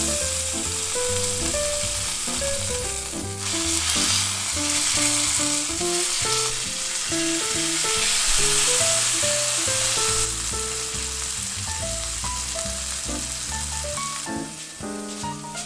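Beef steak searing in hot oil in a frying pan, sizzling steadily, with the sizzle easing off near the end. A light melodic background tune plays underneath.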